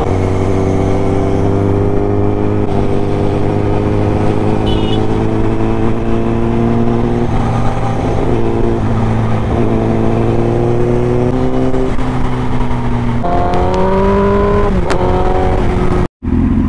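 Honda CBR1000RR Fireblade's inline-four engine under way at speed, its pitch creeping slowly upward as the bike gains speed, with a few small steps where it shifts. Near the end the pitch rises more quickly, then drops, and the sound cuts off for a moment just before the end.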